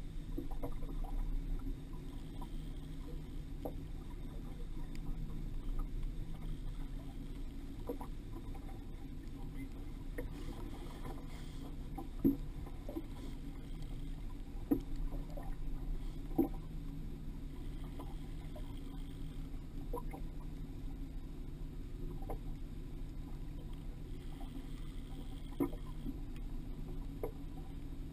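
Boat's outboard motor running steadily at low speed, a low even hum, with a few sharp knocks in the middle and one near the end.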